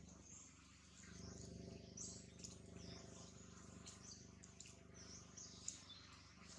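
Faint, scattered high chirps of small birds over a low steady hum.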